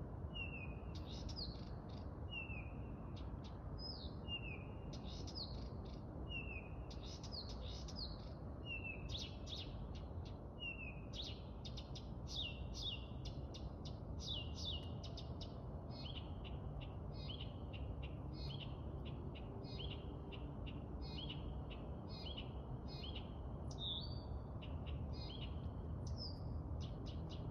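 A songbird singing a rhythmic, repeating phrase: a short falling whistle followed by a quick run of sharp clicks, repeated about every two seconds, over a steady low rumble.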